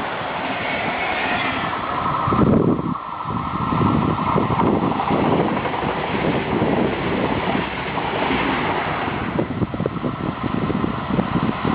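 A train passing on the line, a loud rushing noise with rapid irregular clatter of wheels over the rails, and wind buffeting the microphone.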